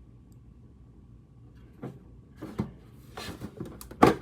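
Handling of a boxed set of metal collector cards: a few light knocks and rubs from about two seconds in, then a sharp click near the end.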